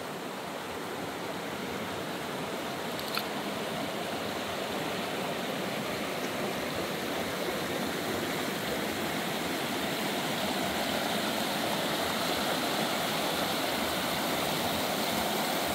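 Steady rushing of flowing water, like a creek running, with a faint click about three seconds in.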